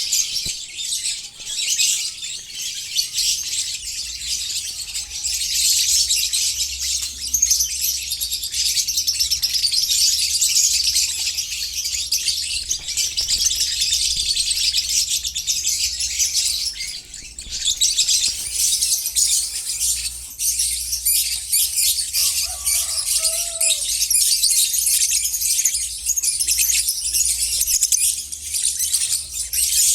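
Many lovebirds chattering at once: a dense, continuous high-pitched din that eases briefly about seventeen seconds in.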